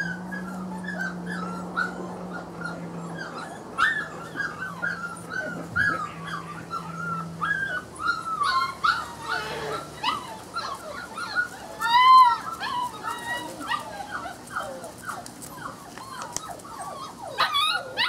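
Brittany puppy whimpering and yipping over and over in short whines, with a louder yelp about two-thirds of the way through.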